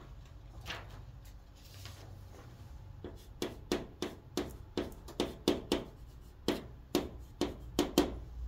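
Chalk writing on a chalkboard: a quiet start, then from about three seconds in a run of short, sharp chalk strokes and taps, roughly two a second.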